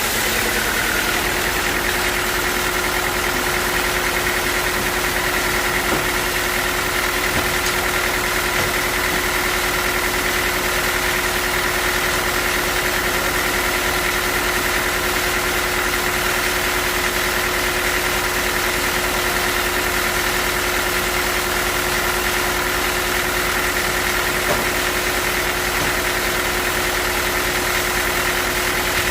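Sawmill machinery running steadily: a constant loud mechanical drone with a steady hum that settles in about a second in.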